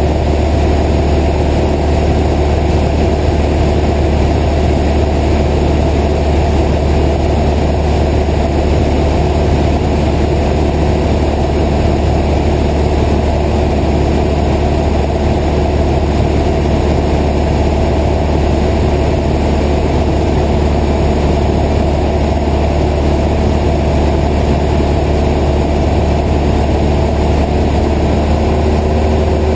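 Single-engine light aircraft's piston engine and propeller running at steady cruise power, a loud, even drone with a deep hum, heard from inside the cockpit.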